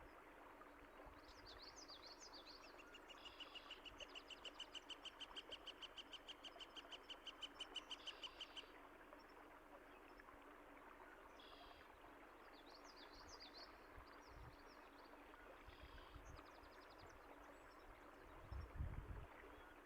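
Songbirds singing over the steady rush of running water. The song has warbled phrases and a long rapid trill of repeated notes, about five a second, that lasts several seconds and grows louder. A few low thumps come near the end.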